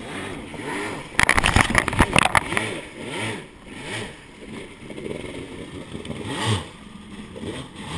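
Kawasaki SX-R 800 stand-up jet ski's two-stroke engine revving up and down in shallow water, with a loud rattling clatter from about one to two and a half seconds in as the ski hangs up on a rock pile, the rocks ruining its prop.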